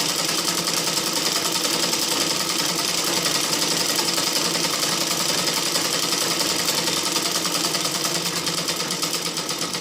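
Sewing machine running continuously, stitching with a fast, even clatter that eases slightly near the end.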